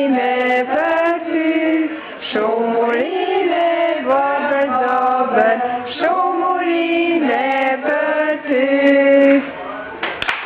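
A family group of women, men and children singing a birthday song together in held, sustained phrases. Clapping breaks out near the end.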